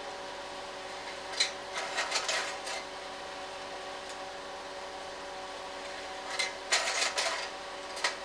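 Slide projector changing slides: two bursts of mechanical clicking and clatter about five seconds apart, and a single click near the end, over the steady hum of its fan motor.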